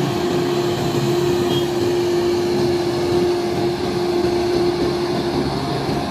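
A steady mechanical drone, even in level, with a constant hum held at one pitch.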